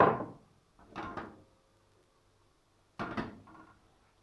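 Three separate knocks: a sharp, loud one at the start, a softer one about a second in, and another about three seconds in that rings briefly.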